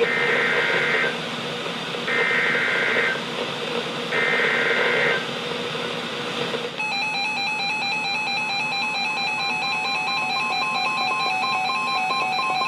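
Emergency Alert System SAME header on NOAA Weather Radio: three one-second bursts of warbling digital data tones, a second apart. About seven seconds in, the long steady alert tone begins, announcing a new severe thunderstorm warning.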